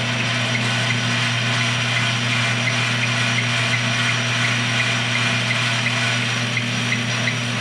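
Metal lathe running steadily while turning down a chunk of aluminum, a constant motor hum under an even cutting hiss.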